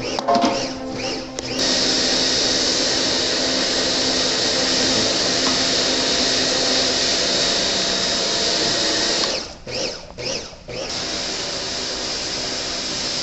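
An electric power tool running steadily under load, cutting out briefly twice about ten seconds in and then running on.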